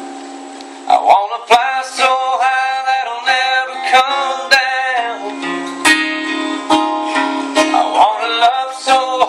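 Two acoustic guitars playing a country song live, strummed chords with picked lines. A held chord rings down for about the first second before the playing picks up again.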